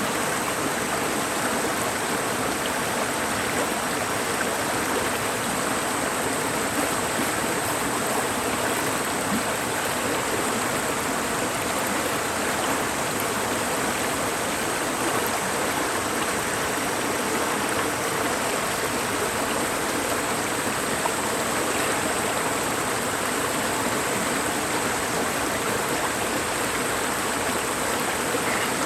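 Mountain valley stream running steadily, an even rushing of water with no change through the stretch.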